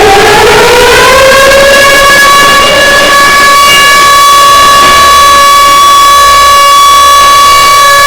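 Civil defense siren rising in pitch over the first second or so, then holding one loud, steady wail. It is the commemorative siren that signals the start of the moment of silence.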